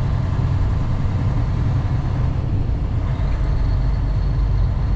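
Steady low drone of a Western Star semi truck's diesel engine and tyres on the highway, heard from inside the cab. A faint thin high whine comes in about three seconds in.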